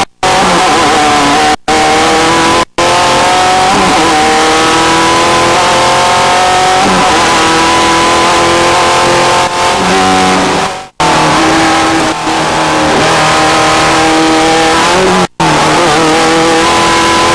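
Desert race vehicle engines running hard at high revs, the pitch climbing slowly and levelling off, with several abrupt breaks where separate clips are cut together.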